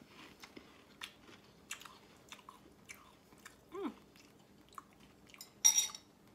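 People chewing mouthfuls of sugar-coated strawberry cereal pieces, with soft scattered crunches and mouth clicks. A short falling 'mm' is heard just before the four-second mark, and a brief loud noisy burst of breath comes near the end.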